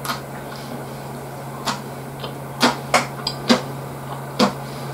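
Eating sounds at a meal: a scatter of short, sharp clicks and smacks from chopsticks on dishes and chewing, about six in five seconds, over a steady low hum.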